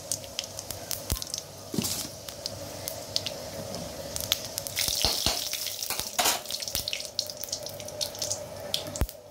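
Panch phoron seeds frying in hot oil in a kadai: a light sizzle with irregular sharp pops and crackles as the seeds splutter. The popping is busiest about halfway through.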